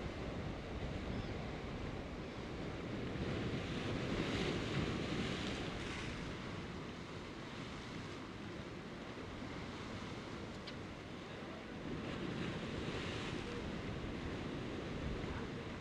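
Sea surf breaking and washing over volcanic shore rocks, swelling louder twice as waves come in, with wind rumbling on the microphone.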